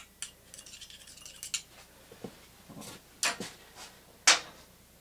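Light metallic clicks and short scrapes from a screwdriver tip pressing an O-ring into a brass gas-fitting socket. This is followed by two sharper knocks, the louder near the end, as hard parts are handled on a workbench.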